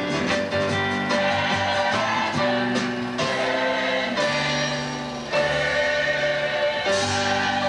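Background music: a choir singing in held, sustained notes.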